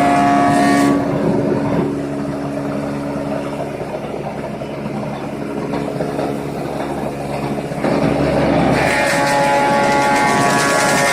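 Thickness planer running with a loud whine of many steady tones, dropping to a quieter run about a second in and rising back to the loud whine about eight seconds in, as a board passes through the cutterhead and the next one goes in.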